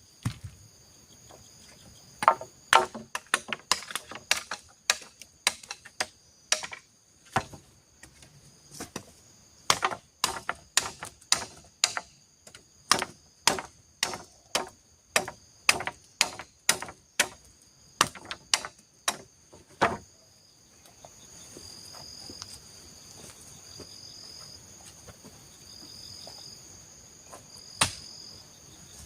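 Wood being chopped: a long run of sharp strikes, about two a second, that stops about two-thirds of the way through. Then insects chirp in a steady pulsing pattern, with one more strike near the end.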